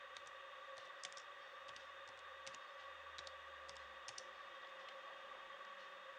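Faint typing on a laptop keyboard: a dozen or so sharp, irregular key clicks, most of them in the first four seconds, over a steady electrical hum.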